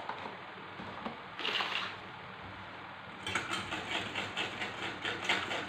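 A pan of thickening brown sauce simmers on a gas burner with a steady hiss. A little past halfway, quick regular scraping strokes start, about four a second, as a spoon stirs the sauce in the pan.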